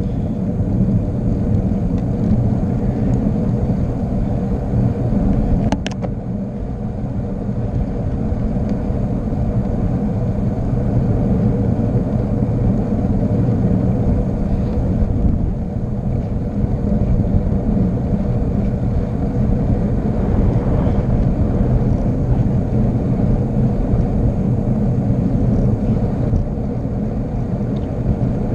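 Steady low rumble of wind and road noise while descending a mountain road at speed, with a single sharp click about six seconds in.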